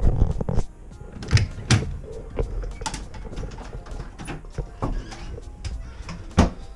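A door being handled and footsteps thudding onto carpeted stairs: a handful of irregular knocks and thumps, the loudest near the end. Faint background music runs underneath.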